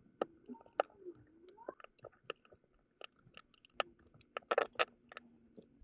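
Hobby knife cutting and scraping into the polyethylene hull of a shotgun shell: a scatter of small, sharp clicks and crackles, busiest near the end.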